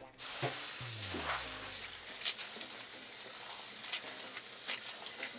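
Kitchen tap running into a stainless steel sink over a bowl of spinach, with the leaves rustled and rubbed by hand under the stream. A short low falling hum comes about a second in.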